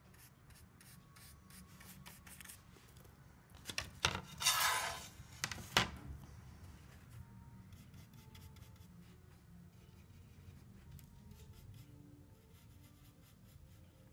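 Paintbrush working on canvas: faint light scratching and tapping strokes. About four to six seconds in there is a louder rubbing rustle with two sharp knocks.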